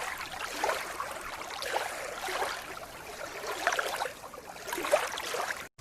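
Water sloshing and splashing as a ship moves through waves, an uneven rushing noise with no engine or horn tone, cut off abruptly near the end.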